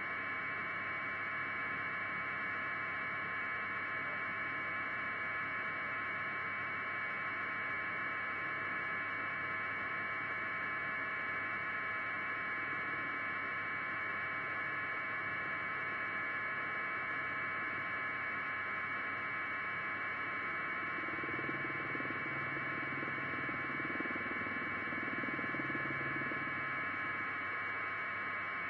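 Steady hiss with a thin electrical whine, confined to a narrow middle band and unchanging throughout; faint muffled low sounds come and go about two-thirds of the way through.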